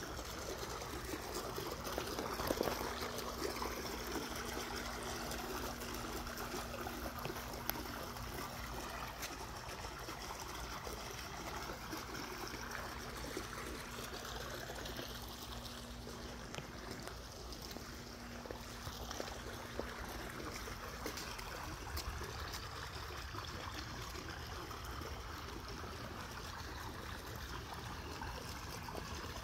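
Water trickling steadily, likely from the swimming pool, under a low steady hum that stops about two-thirds of the way through.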